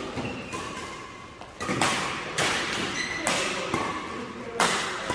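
Badminton rackets striking a shuttlecock in a doubles rally: several sharp cracks about a second apart, echoing in a large hall.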